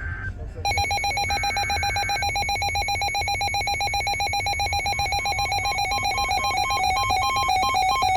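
Electronic alert tone: a loud, buzzy beep pulsing many times a second starts just under a second in, with a second, higher pitch alternating with it from about five seconds in. It marks the start of a new emergency alert.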